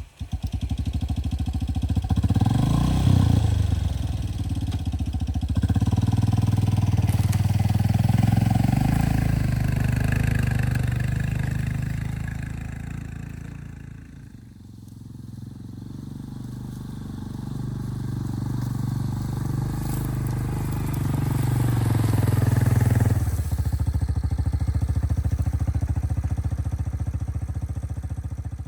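An engine running under varying load, its note rising and falling as it revs, easing off for a moment near the middle, then settling to a steadier, lower note about two-thirds of the way through.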